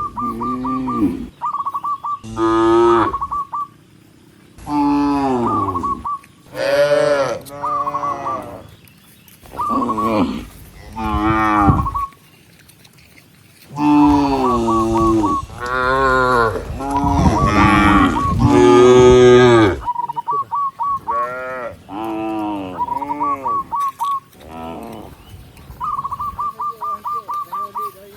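A herd of cattle mooing: long, drawn-out moos one after another from several cows, overlapping densely for several seconds about halfway through, with brief lulls between.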